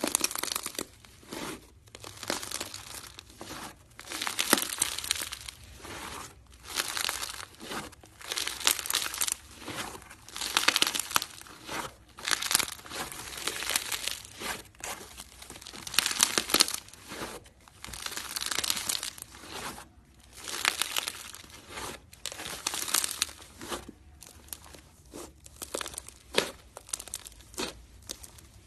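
Slime being squeezed and worked by hand, giving bursts of rapid clicks, one every second or two, with short pauses between.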